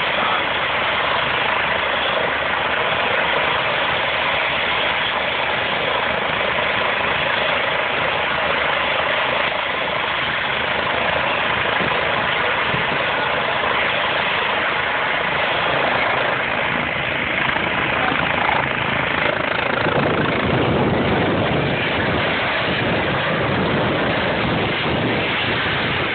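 Eurocopter EC135 rescue helicopter's turbines and main rotor running steadily on the ground. From about 20 seconds in, a deeper rumble and gusting rotor wash on the microphone build as it powers up and lifts off.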